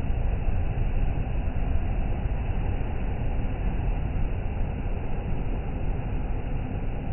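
Steady low rumbling noise of sea surf and wind on the microphone, with no breaks.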